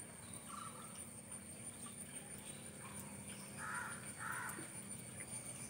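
Quiet outdoor ambience: a steady high-pitched whine, with three short calls from a small animal, one about half a second in and two close together a little before the end.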